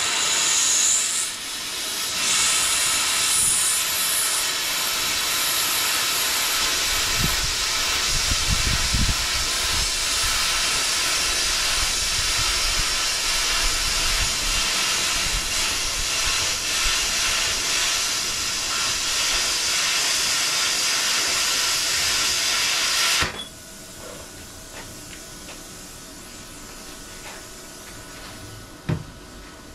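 Plasma cutter cutting quarter-inch steel plate: a loud, steady hiss that cuts off sharply about twenty-three seconds in. After it the machine's fan keeps running quietly, and there is a single clunk near the end.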